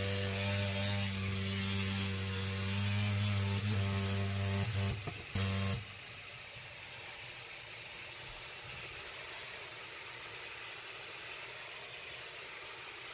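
Running HVAC equipment: a loud steady hum over a rush of air, with a few knocks near five seconds in. About six seconds in the hum cuts off suddenly, leaving a quieter steady air rush.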